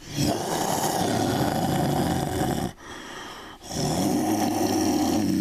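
Monster roar sound effect for a giant ant creature: two long growling roars, the second beginning about a second after the first ends.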